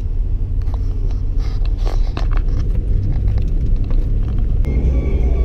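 Steady low rumble of road noise inside a moving pickup truck's cabin, on a wet road. A flurry of short clicks and rustles comes about one to two and a half seconds in, and music comes in near the end.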